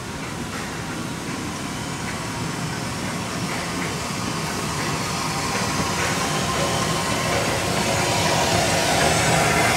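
Metre-gauge 2-10-2T steam tank locomotive 99 7238-1 and its coaches running through a station, growing steadily louder as the train draws closer.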